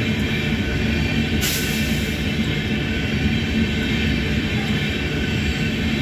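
An Indian Railways express of LHB passenger coaches rolling past at speed, with a steady rumble and clatter of wheels on the rails. A brief hiss rises over it about a second and a half in.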